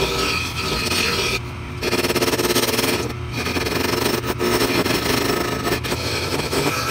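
Wood lathe running with a steady hum while a turning tool cuts the spinning red ash blank, making a continuous scraping that breaks off briefly twice as the tool comes off the wood.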